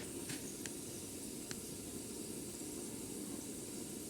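A pan of ginger, garlic and spice remedy boiling on the stove: a steady hiss with a few sharp pops in the first second and a half.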